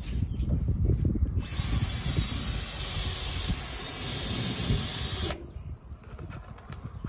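Cordless drill running steadily for about four seconds as it drills into the bus roof, a dense hiss-like whir that starts about a second in and cuts off sharply. Wind rumbles on the microphone throughout.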